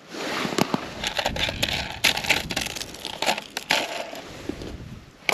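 Crunching and crackling of broken ice chunks and packed snow, with clothing rustling, as someone kneels at an ice-fishing hole and reaches into the slush. The sound comes in irregular, sharp crackles.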